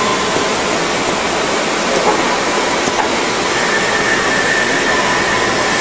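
Steady, loud machinery noise from the automatic welding rig and its workshop, an even hiss and rumble, with a faint high whine coming in about halfway through.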